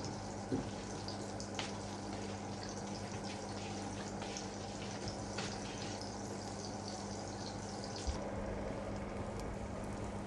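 Margarine melting and sizzling in a hot frying pan, a steady hiss with small scattered crackles, over a steady low hum.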